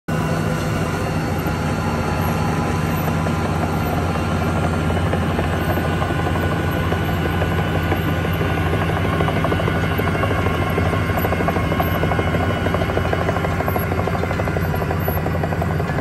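Volvo ABG8820B tracked asphalt paver's diesel engine running at a steady speed as the paver travels along on its crawler tracks.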